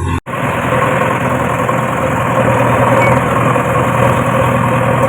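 A brief stretch of background music cuts off abruptly, and the steady running of a heavy diesel machine engine follows, from a backhoe loader or a farm tractor.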